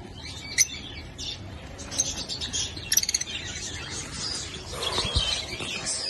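Small caged parrots, lovebirds among them, chirping in an aviary: scattered sharp, high chirps, with a quick run of chirps about three seconds in.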